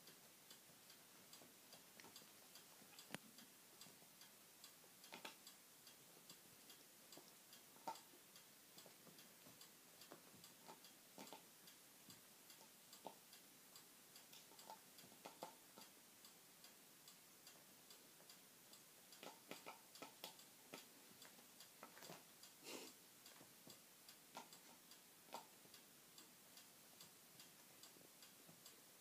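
Faint, scattered light clicks and taps from a plastic water bottle as a guinea pig noses and pushes it about on carpet. The clicks come more thickly about twenty seconds in.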